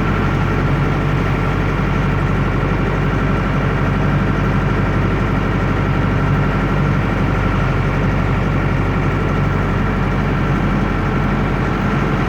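Air-cooled Deutz F4L912 four-cylinder diesel of a 2002 Otokar M2000 minibus running steadily, loud and noisy, with no change in pitch.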